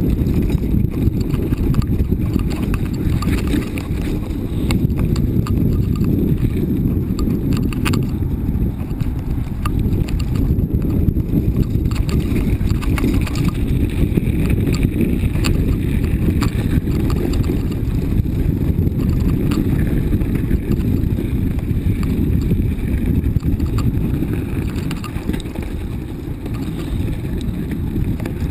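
Riding a mountain bike down a rough forest trail: steady wind buffeting and rumble on the microphone, with scattered clicks and knocks as the bike goes over bumps.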